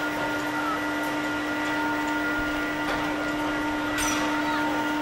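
Steady mechanical drone of fairground ride machinery: a constant hum over an even rushing noise, with a short sharp clatter about four seconds in.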